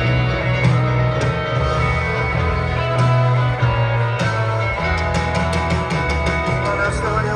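Live rock band playing an instrumental passage with electric guitars, upright bass, piano and a steady drum beat, heard from the audience.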